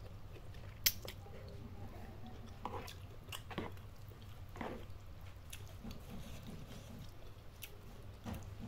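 Close-miked chewing and biting of spicy instant noodles with bok choy and chilies, in scattered wet, crunchy mouth sounds, with a sharp click about a second in.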